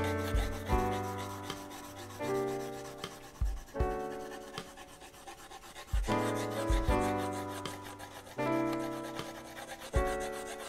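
Graphite pencil shading on drawing paper, a quick scratchy rubbing of many short strokes. Under it plays slow background music of held notes that change every second or two.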